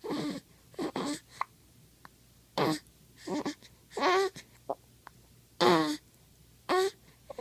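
A string of short vocal sounds about once a second, each a brief call that falls in pitch, with a few shorter sharp catches between them.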